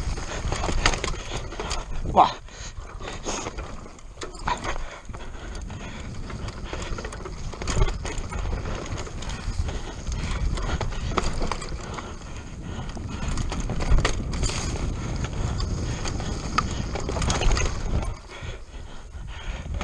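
Mountain bike descending a rough forest trail at speed: constant rattling and clattering of the bike over roots and bumps, with tyre noise on dirt and a low wind rumble on the microphone. Sharper knocks stand out about two seconds in and again near fourteen seconds.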